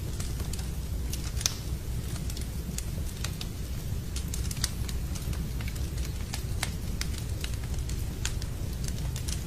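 Wood fire in a fireplace crackling: sharp, irregular pops several times a second over a steady low rumble.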